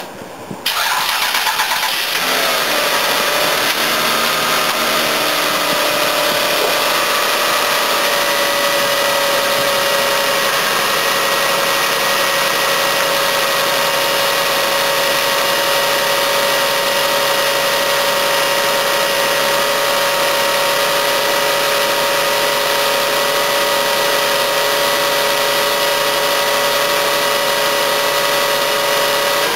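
Toyota Camry V6 engine cranking and catching about a second in, its revs falling back over the next few seconds and then settling into a steady idle.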